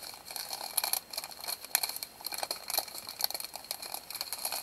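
Small clear plastic bags of diamond painting drills crinkling and crackling as they are handled, in a stream of irregular crackles.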